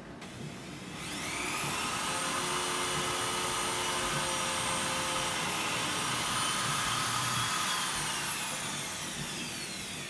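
Electric drill boring a pilot hole in a wooden cupboard door: the motor spins up about a second in, runs at a steady high whine, then winds down near the end.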